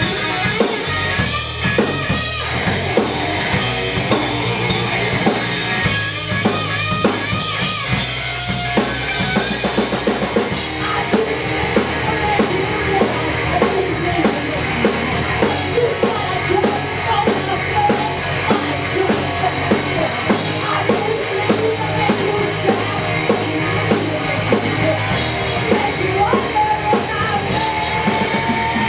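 Rock band playing live: drum kit keeping a steady beat under electric guitar and bass guitar, with a bending lead melody over the top.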